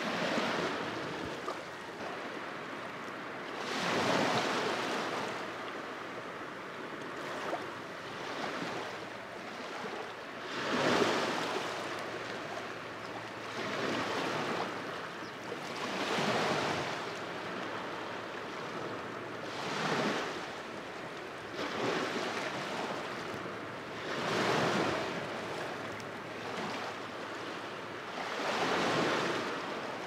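Small waves washing onto a shore, surging and falling back every few seconds over a steady hiss of moving water.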